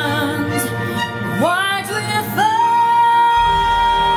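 Music with singing: a voice slides up twice and settles into one long held note, with a bass part coming in near the end.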